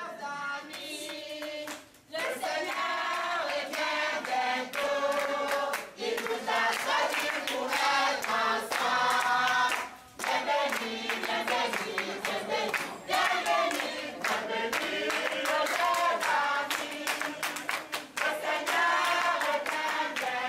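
A group of voices singing together, with hand clapping keeping the beat.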